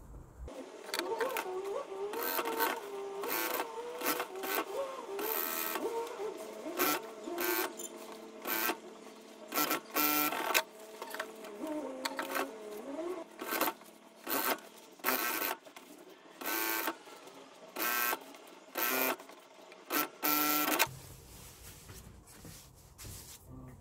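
Industrial lockstitch sewing machine stitching a seam in many short runs, starting and stopping every second or so, each run a brief mechanical clatter.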